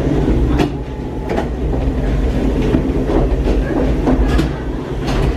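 Gateway Arch tram capsule riding its track up the arch leg: a steady low rumble with sharp clanks and clicks every second or so.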